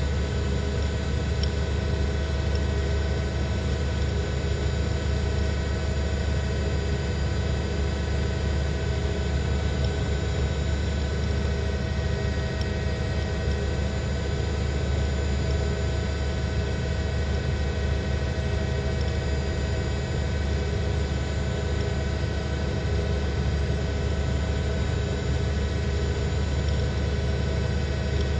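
News helicopter noise heard from inside the cabin: a steady, unchanging drone with a strong low rumble and many held tones.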